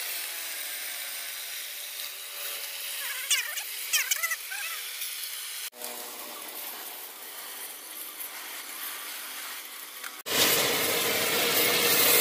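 Homemade sandblaster, a pressure-washer water jet drawing sand from a bottle hopper, spraying a motorcycle engine block inside a metal box. The spray noise is moderate at first, with a few high squeaks around three to four seconds in. About ten seconds in it becomes a loud, steady hiss of the jet.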